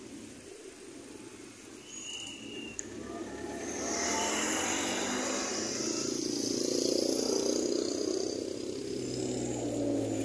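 Motor scooters in street traffic, engines running and passing, growing louder from about four seconds in.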